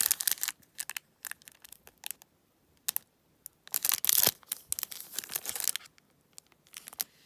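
Topps trading card pack wrapper being torn open and crinkled by hand, in a string of short crackly rips, with the longest and loudest tear about four seconds in.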